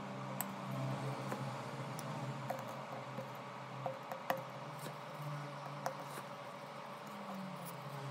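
Small, sharp clicks and taps of hand tools and parts during repair work on a OnePlus 8 phone, a handful spread irregularly over several seconds, over a low steady hum that drifts slowly in pitch.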